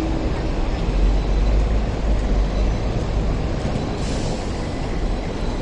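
Hong Kong double-decker electric tram rolling slowly along its street track, a steady low rumble from its wheels and motors, with a short hiss about four seconds in.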